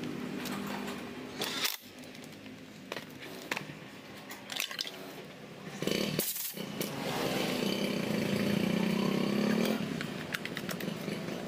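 A cordless drill runs briefly, driving screws into a chainsaw's cover, followed by clicks of handling. About six seconds in, the two-stroke chainsaw engine is pull-started and then idles steadily.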